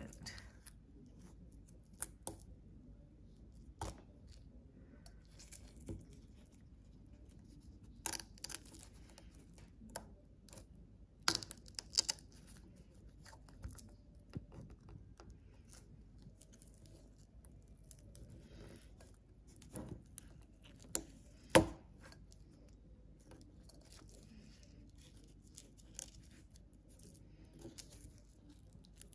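Dry outer sheaths of a lemongrass stalk being peeled off by hand: scattered crackles and tearing snaps, the sharpest about three-quarters of the way through.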